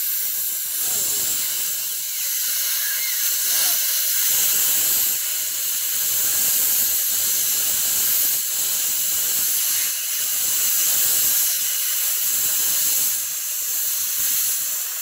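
Air plasma cutter hissing steadily as it cuts through the inner CV joint of a drive shaft.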